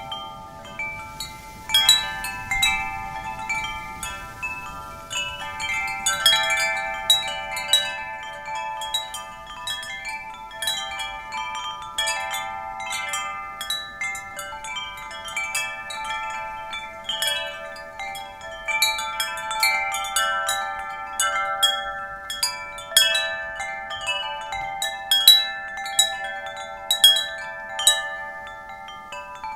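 Wind chimes ringing continuously, struck irregularly by the wind so that many clear, overlapping notes sound and decay into one another.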